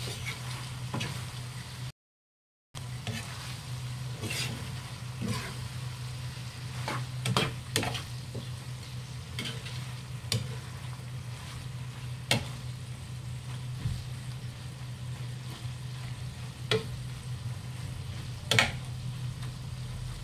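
Meat and vegetables sizzling in a frying pan as a metal spatula stirs and tosses them, with sharp clicks of the spatula against the pan every couple of seconds, the loudest near the end. A steady low hum runs underneath, and the sound cuts out briefly about two seconds in.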